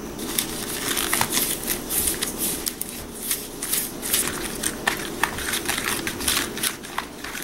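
Small plastic spoon stirring and scraping Nerunerunerune powder and water in a plastic candy tray, a fast, irregular scratching and clicking.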